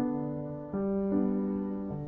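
Slow background piano music: a new note or chord is struck every half second or so, each fading away after it sounds.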